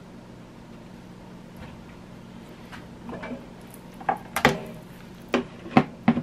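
Kitchen items handled on a countertop: soft rustling, then a quick run of five sharp knocks and clacks, the loudest about halfway through.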